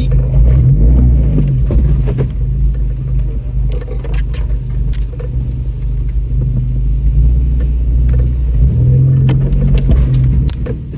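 Off-road vehicle's engine running at low speed while crawling over a rough trail, with scattered clunks and rattles from the body and suspension.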